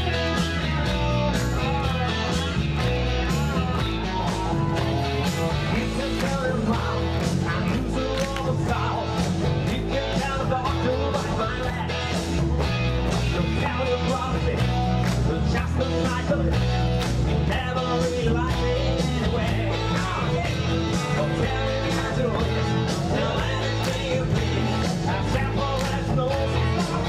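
A live band playing upbeat country-rock music with guitar over a steady drum beat and bass.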